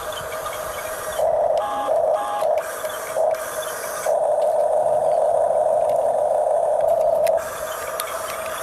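Huina 1569 RC toy bulldozer's electric motors and gearboxes whining steadily as it works. The whine swells louder in short spells, then in one long stretch from about four seconds in to just past seven.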